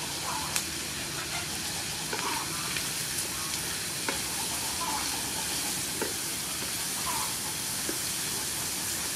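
Sea snail and vegetables sizzling steadily in a frying pan as a wooden spatula stirs them, with a few sharp knocks of the spatula against the pan.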